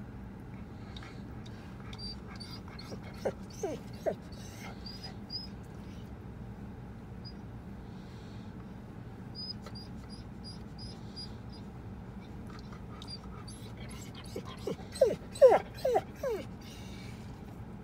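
Black Labrador retriever whining in short high squeals, fretting because the vehicle has stopped: three around three to four seconds in and a louder run of them near the end. A steady low hum runs underneath.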